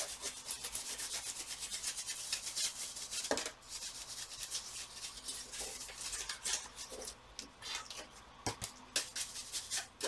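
Quick, scratchy rubbing strokes as a laptop's black plastic back cover is wiped clean, with a few light knocks.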